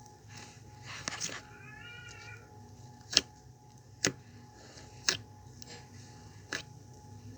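A cat meows once about two seconds in, a single call that rises and falls in pitch. Four sharp clicks, louder than the meow, follow about a second apart.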